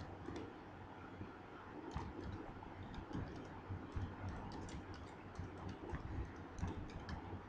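Faint typing on a computer keyboard: a run of irregular keystroke clicks starting about two seconds in, over a low steady hum.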